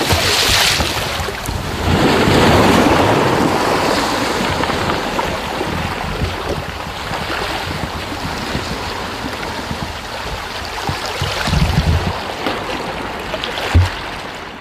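Sea water washing and lapping, with wind buffeting the microphone in low thumps. There is a sharp splash right at the start as a stone drops into the sea.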